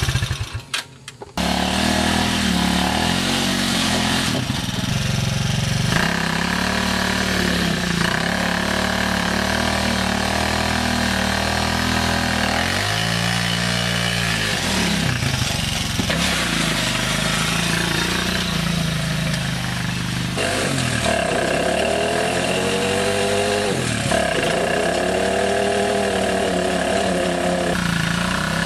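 Kingway 200 ATV engine running and revving, its pitch rising and falling several times. There is a short break about a second in.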